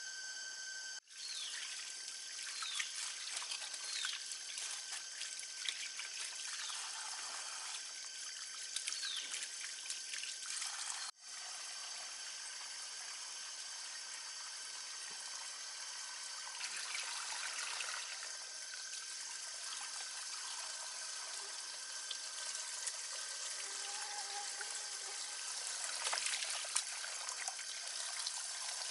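Water trickling and splashing unevenly over a steady high-pitched drone of insects, with a few short falling chirps in the first several seconds. The sound drops out abruptly twice, about a second in and about eleven seconds in.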